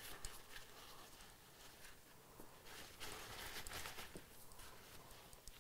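Faint rustling and rubbing of a paper towel as airbrush parts are wiped clean with lacquer thinner, a little louder midway, with a few light clicks.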